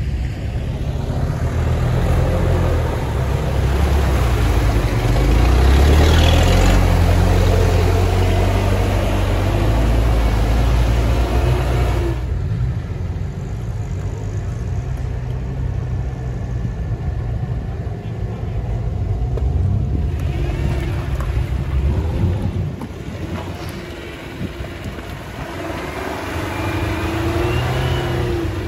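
Suzuki Jimny's engine working hard off-road through mud and water, its note rising and falling under the throttle. It drops away abruptly about twelve seconds in, then near the end revs up with a rising pitch as the Jimny climbs a mud bank.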